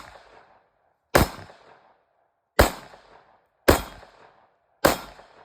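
Smith & Wesson M&P 5.7 pistol, firing 5.7×28mm, shot four times at a steady pace about a second apart; each crack trails off in a short echo. The hits on the steel plate are barely audible: it doesn't sound like the target was hit, though every shot was.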